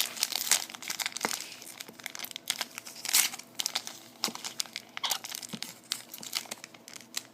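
Foil wrapper of a trading card pack crinkling and tearing as it is worked open by hand, in a quick run of crackles and rustles with a louder rip about three seconds in.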